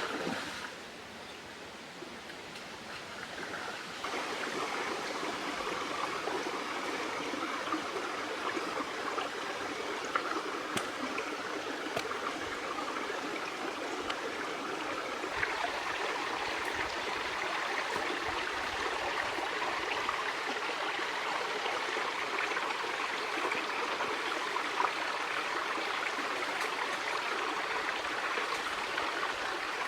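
Stream water running steadily, louder from about four seconds in and again about halfway through.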